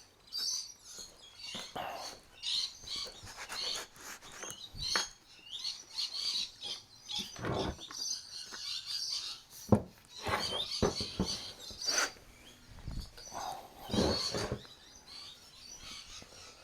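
Small birds chirping and twittering throughout. Several sudden knocks and clatters are scattered among them, one loudest about ten seconds in.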